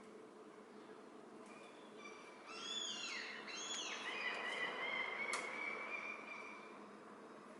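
Birds calling: a few quick chirps, then a longer steady high note, over a faint low hum. A single sharp click comes partway through.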